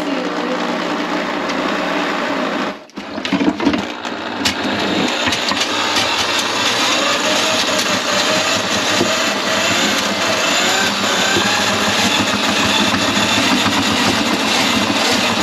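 Electric drain snake running, its motor and spinning cable working through a kitchen drain line clogged with grease. It cuts out briefly about three seconds in, with a few knocks, then runs on steadily.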